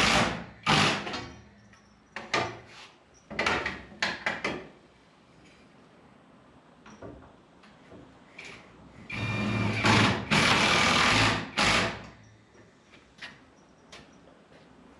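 Work on metal wall shelving: short runs of a power driver or drill and knocks and sliding of metal shelf parts, in several bursts with quieter gaps. The longest, steadiest burst comes about two-thirds of the way in.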